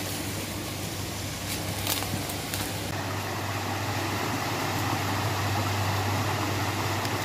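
Steady rushing of river water, a constant hiss that grows a little louder partway through as the trail comes alongside the river.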